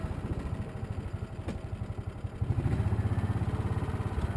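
Small vehicle engine running as it drives along, with a quick low pulsing beat, growing louder about two and a half seconds in.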